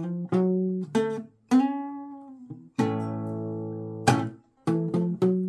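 Blues played on guitar: chords struck and left to ring, some damped short, with a bent note about a second and a half in and quicker strummed chords near the end.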